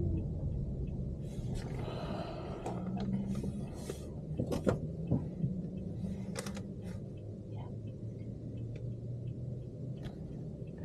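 Inside a moving taxi: the steady low rumble of the car and road, with a few light clicks and knocks and a faint, regular ticking.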